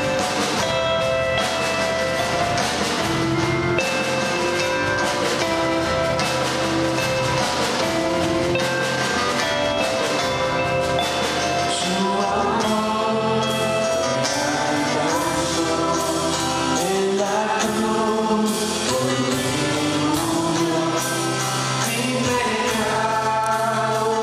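Live worship band playing a slow song on electric guitars, bass and drum kit. Singing comes in about halfway through, over a steadier drum beat.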